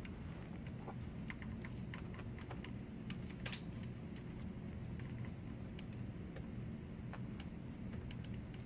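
Faint, scattered clicks and ticks of a small screwdriver turning out the tiny screws that hold a laptop's LCD panel, over a low steady hum.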